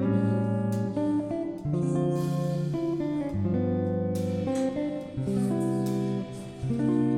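Background music: guitar playing a chord progression, with notes and chords changing about once a second.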